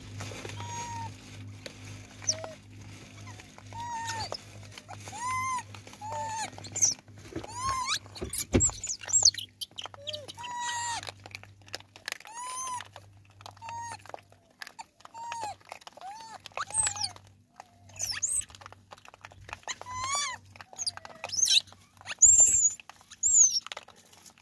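Rhesus macaques calling: a string of short coos, each rising and falling in pitch, with sharper high-pitched squeals near the end.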